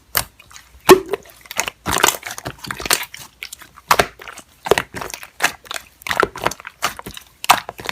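Slime being squeezed and pressed by hand, giving irregular crisp pops and crackles a few times a second.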